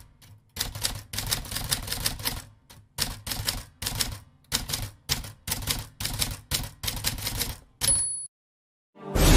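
Typewriter typing sound effect: rapid key strikes in short bursts, then a short high bell ding about eight seconds in. Music starts right at the end.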